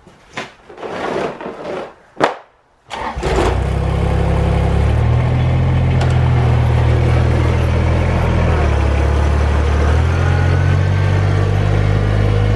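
A heavy rubber floor mat dragged and flopped on a concrete floor for the first few seconds, with one sharp smack about two seconds in. Then a Kubota compact tractor's diesel engine runs steadily as it drives, its pitch stepping up and down a few times.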